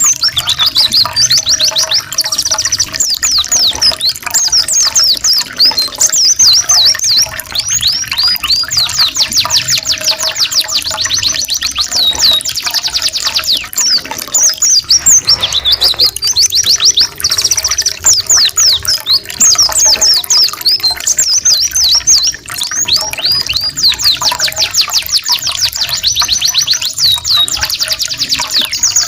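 Canary and Oriental white-eye song: long runs of fast, high repeated trill notes, with a brief break about halfway through.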